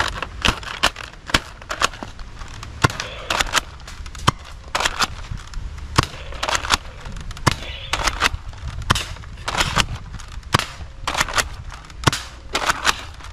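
X-Shot toy gel blaster firing shot after shot, a string of sharp snapping cracks about two a second, unevenly spaced, mixed with the clack of gel balls hitting plastic targets and knocking them down.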